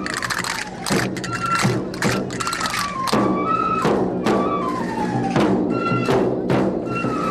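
Traditional festival dance music: a transverse flute (pito) playing a stepwise melody over regular drum beats and clacking chácaras (large castanets).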